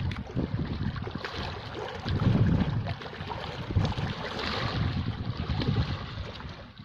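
Sea waves washing in, with wind buffeting the microphone in low rumbling gusts.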